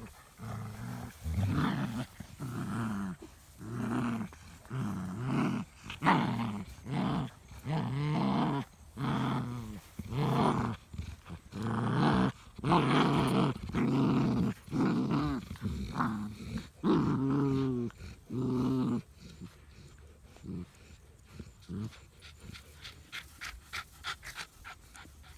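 Dogs play-growling over a rope toy in a tug-of-war: a run of repeated throaty growls, roughly one a second, that stops about three-quarters of the way through.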